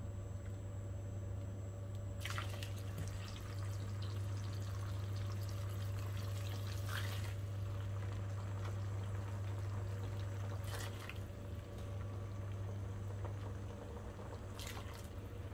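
Broth poured into a non-stick wok over blocks of udon noodles, a steady pouring splash lasting about five seconds, over a constant low hum.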